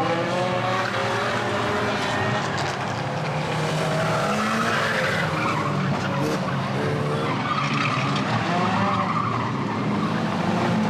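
A pack of banger racing cars and vans running together on the track, several engines revving up and down over one another, with tyres skidding.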